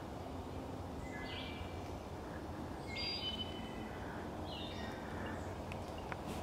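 A songbird in woodland singing three short whistled phrases, one about every second and a half to two seconds, over a steady low background rumble.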